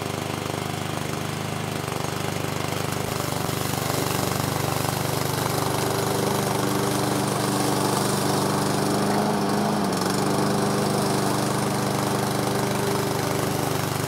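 Gasoline engine of a DareDevil remote-control tracked slope mower running steadily under load, its blade cutting a strip of tall, mid-calf grass with the deck raised all the way up. The engine note sags briefly about two-thirds of the way through, then recovers.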